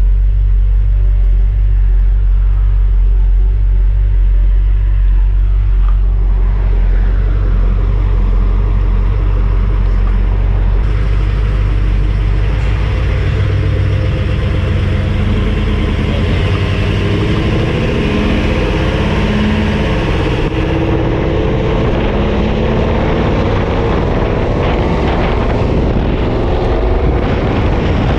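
1970 Ford F250 Highboy's 427 V8 running: a deep steady rumble at first, then the engine note rises from about six seconds in as the truck accelerates down the road.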